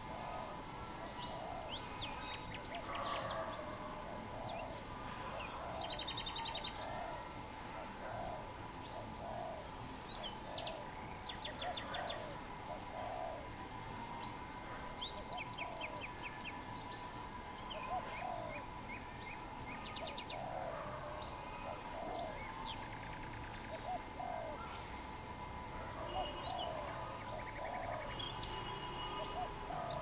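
Wild birds calling: a dove's low coos repeating over and over, under scattered high chirps and rapid trills from small birds, with a faint steady whine throughout.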